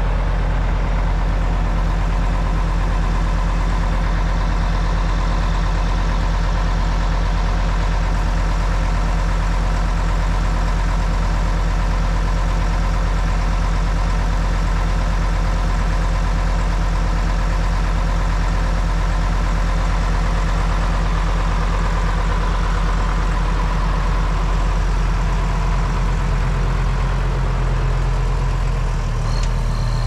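Deutz DX 90 tractor's air-cooled six-cylinder diesel idling steadily. Near the end the engine note gets stronger as the engine picks up.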